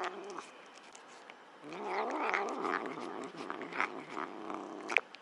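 A cat giving one long, low, wavering yowl lasting about three seconds, after the tail end of an earlier call. A sharp click comes at the very end of the yowl.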